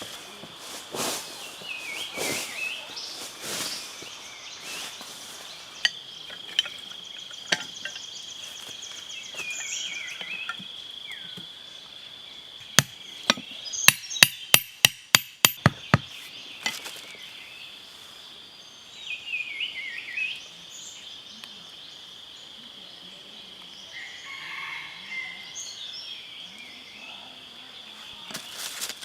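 Sharp knocks, scattered at first, then a fast run of about a dozen at roughly four a second around the middle, typical of tapping or chopping while building a trap. A steady high insect drone runs underneath, with a few short chirps.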